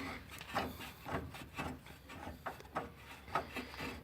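Irregular light clicks and scrapes of hand tools working on the car's rear suspension.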